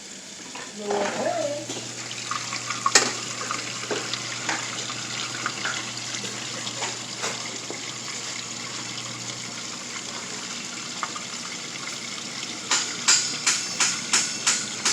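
Washing machine running, its motor or drain pump humming steadily over the sound of water moving, until the hum stops near the tenth second. Near the end a rhythmic knocking starts, about three knocks a second.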